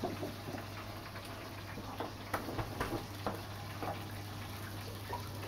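Light clicks and taps, about eight scattered irregularly, as an olive oil bottle is handled and its cap twisted off, over a steady low hum.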